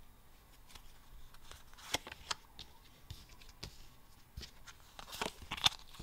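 Yu-Gi-Oh trading cards being handled: a card slid onto a stack and the next one picked up, with a few short card-on-card scrapes and soft taps, loudest about two seconds in and again near the end.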